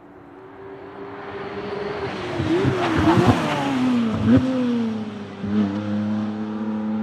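McLaren Artura GT4 test car's 3.0-litre twin-turbo V6 at full throttle, growing louder as it closes in and dropping in pitch as it passes at speed. The note briefly breaks about five and a half seconds in, a gear change, then holds steady as the car pulls away.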